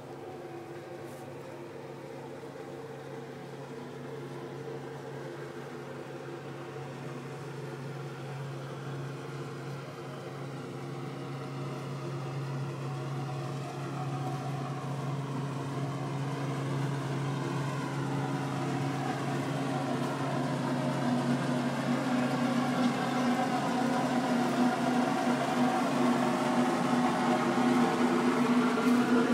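A steady mechanical hum, like an engine or motor running at constant speed, growing gradually louder.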